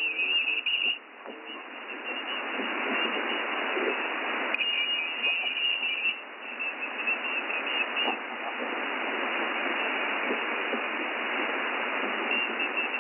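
Shortwave receiver audio in upper-sideband mode on the 20 m band: steady static hiss, with an unidentified station's signal coming and going as a high band at the top of the audio. It is there in the first second and again from about four and a half to six seconds in.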